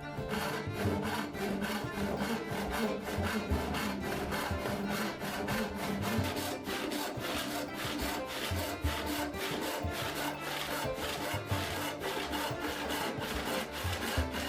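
Hand saw cutting through white oak in quick, regular strokes.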